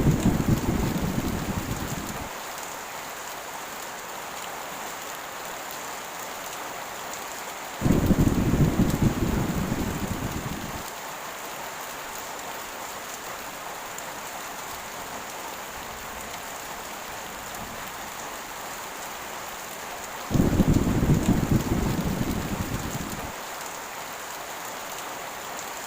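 Heavy rain hissing steadily, with three low thunder rumbles that each start suddenly and fade over about three seconds: one at the start, one about eight seconds in and one about twenty seconds in.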